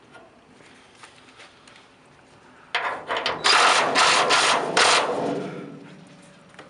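Cordless power driver spinning a socket on a car's hood-hinge bolt, in several loud trigger bursts starting about three seconds in and dying away about two seconds later.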